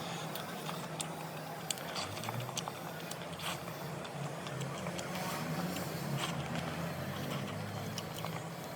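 Chewing and eating sounds from a mouthful of chicken biryani: scattered soft clicks and smacks. A steady low hum runs underneath.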